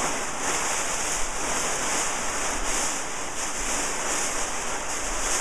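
Steady rustling hiss of kite fabric being handled and pulled, with uneven swells, as the stuffed body of a parafoil kite is drawn out of its sewn burrito roll.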